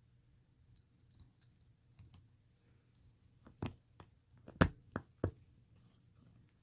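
Small clicks and taps of RC beadlock wheel parts and tiny screws being handled, with a few sharper clicks in the second half.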